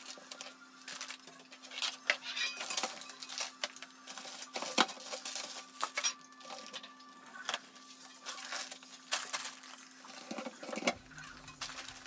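Plastic food packets crinkling and rustling, with irregular light knocks and clicks as packages are taken out of a pantry cabinet and dropped into a plastic basin. A steady low hum runs underneath.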